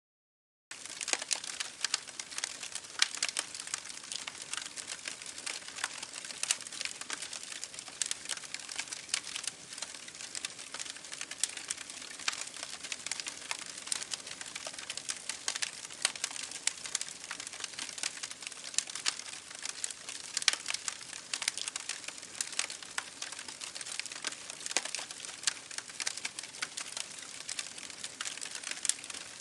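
Close, dense pattering of small water drops: many sharp irregular ticks and crackles, starting just under a second in after a brief silence.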